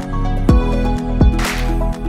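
Background music: a steady beat with sustained notes over it.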